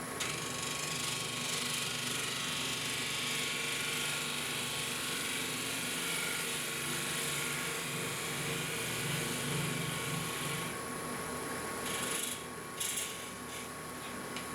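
Wood lathe running with a steady motor hum while a detail gouge cuts the spinning Osage orange wood with a hissing scrape. The cutting stops about twelve seconds in, followed by a couple of short knocks.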